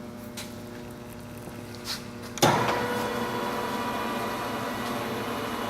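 Deckel FP2 milling machine's spindle motor switched on about two and a half seconds in, after a few light clicks, then running steadily with a whine at its low speed of 63 RPM.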